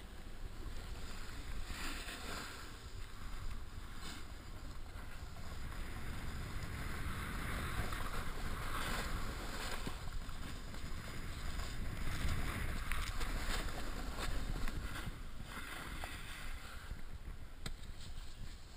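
Snowboard sliding and carving over packed snow: a continuous scraping hiss that swells and eases several times with the turns, over a steady low rumble of wind on the microphone.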